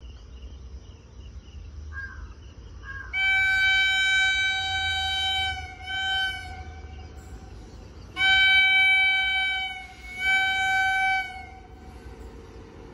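Locomotive horn on an approaching train, sounding four steady single-pitch blasts: a long one, a short one, another long one and a shorter one, over a low rumble.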